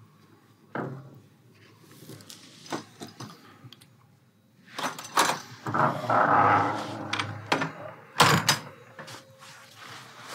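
A wooden door's handle and latch clicking as the door is opened, with scattered knocks. A loud thud comes about eight seconds in.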